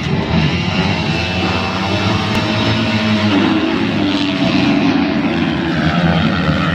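A pack of 250cc motocross bikes revving hard together at the start gate, then accelerating off the line about three seconds in, their engine notes rising.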